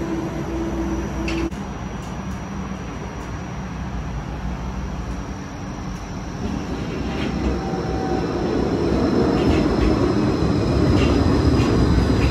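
Gold Coast G:link light-rail tram (Bombardier Flexity 2) sounds at a tram stop. A steady hum cuts off abruptly about a second and a half in. Then an approaching tram's running rumble grows steadily louder as it pulls in to the platform.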